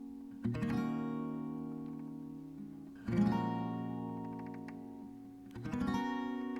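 Background music: acoustic guitar chords strummed three times, about two and a half seconds apart, each left to ring and fade.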